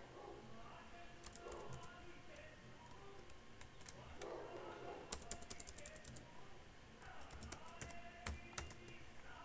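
Computer keyboard typing in several short bursts of quick keystrokes, with pauses between them.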